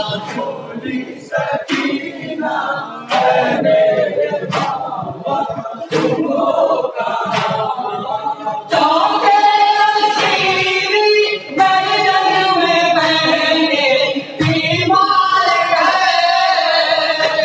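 Men chanting a noha, an Urdu mourning lament, with no instruments, a crowd voicing it in chorus. Through the first half sharp slaps of matam chest-beating keep time about every second and a half. From about nine seconds in the lead reciters' voices through the microphone come in louder and fuller.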